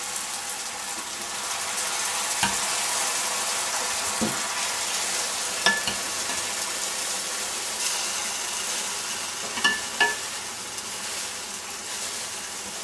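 Tomato sauce sizzling as it is ladled into a hot frying pan of onions and garlic cooking in olive oil, a steady frying hiss. A few sharp clinks of the metal ladle against the pan come through it.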